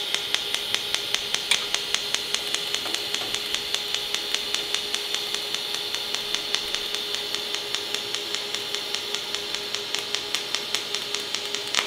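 TIG welding arc running in pulse mode: a steady hiss with a sharp tick at each current pulse, about four ticks a second.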